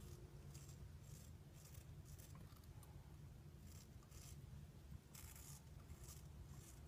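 Faint scratchy strokes of a Riccardo Tonarini 7/8 straight razor cutting through lathered stubble over 5 mm long, a short stroke every second or so and a longer one about five seconds in, over a steady low hum.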